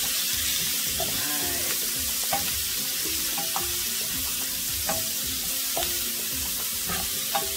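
Diced butternut squash, bell peppers and red onion sizzling in olive oil in a skillet, with a steady hiss. A wooden spoon stirs them, scraping against the pan in short strokes every second or so.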